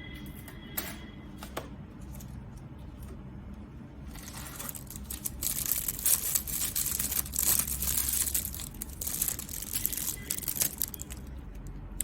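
Packaging crinkling and rustling as it is handled, with a few light clicks about a second in and a longer stretch of dense crinkling from about four seconds in until near the end.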